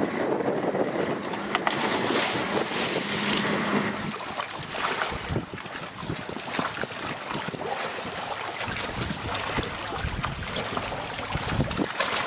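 Sea water sloshing and lapping against the side of a boat, with wind gusting on the microphone.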